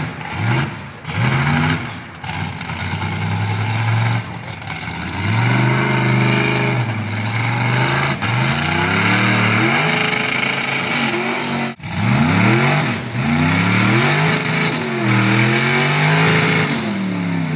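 Lifted mud-bog truck's engine revving hard in repeated bursts, its pitch climbing and dropping with each stab of the throttle.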